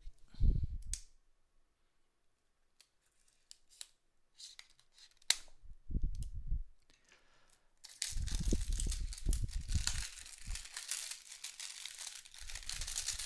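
Plastic shrink-wrap being torn and crinkled off a cardboard box, with handling bumps and a few sharp clicks; the crinkling turns continuous about eight seconds in.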